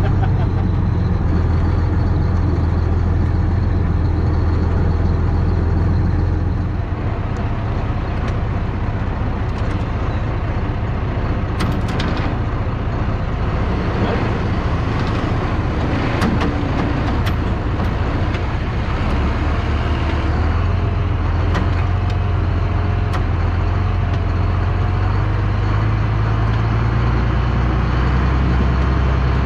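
Steady engine drone throughout, heard first from a tractor cab and then from heavy equipment being towed on chains behind a Ford Super Duty pickup. The equipment rattles, with sharp knocks and clanks from the chains, most of them in the middle of the stretch.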